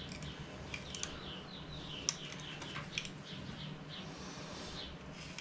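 Faint bird chirps, some in quick falling runs, over a low steady hum, with a few light clicks.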